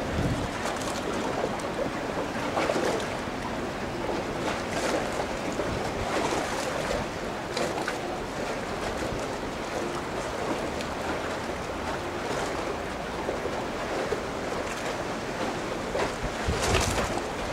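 Steady outdoor rush of wind and water, briefly louder near the end.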